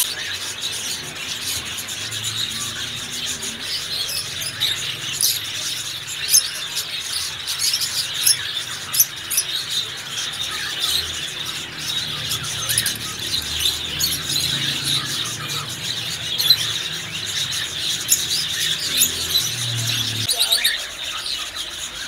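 Many caged lovebirds, peach-faced lovebirds among them, chattering and shrieking all at once: a dense, continuous mass of high, rapid chirps and squeals.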